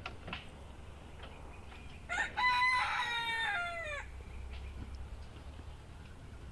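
Rooster crowing once, about two seconds in: a short opening note, then a long call that falls in pitch at the end. A steady low rumble runs underneath.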